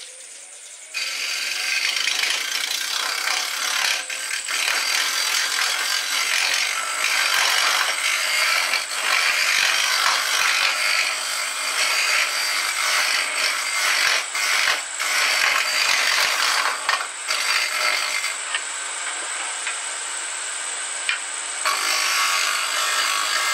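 Wood lathe turning a wooden handle blank, a hand-held turning tool cutting along the spinning wood to taper it: a steady hissing scrape of shavings coming off. The cut begins about a second in and eases off briefly in the last third before biting again.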